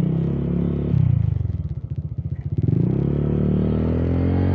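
Honda scooter's single-cylinder engine dropping to low revs, its separate firing pulses audible, then rising in pitch as the throttle opens about three seconds in and pulling away steadily.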